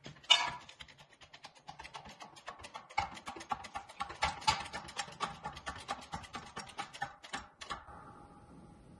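Hydraulic bottle jack on a shop press being pumped by its handle: a sharp click, then a quick run of clicks and creaks at about three a second, stopping about eight seconds in. The jack is pressing a small metal part into its interference-fit hole.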